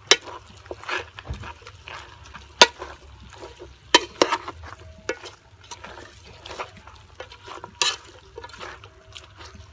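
Cooking utensils knocking and scraping in a pot while food is stirred, with a few sharp knocks standing out among lighter clinks and some liquid sounds.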